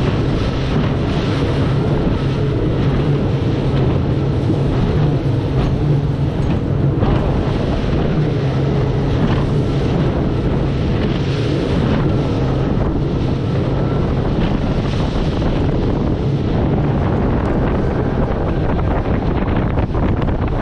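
Strong wind buffeting the microphone, with a steady low drone underneath.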